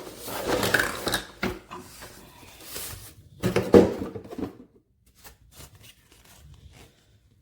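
Cardboard packaging being handled during an unboxing: rubbing and rustling in two bouts, the louder ending about four and a half seconds in, followed by only faint handling sounds.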